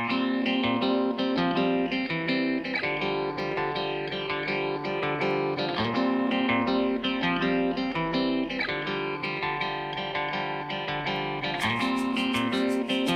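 Instrumental background music that cuts in suddenly. A quick high ticking beat, about four ticks a second, joins near the end.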